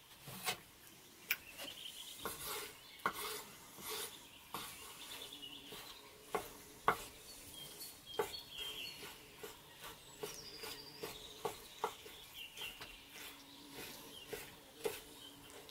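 Kitchen knife slicing raw goose liver on a wooden cutting board: irregular taps and knocks of the blade on the board. Birds chirp faintly in the background.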